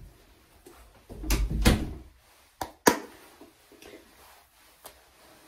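Bathroom cabinet being opened and closed: a dull thump about a second in, then a sharp clack just before the three-second mark, followed by a few faint knocks.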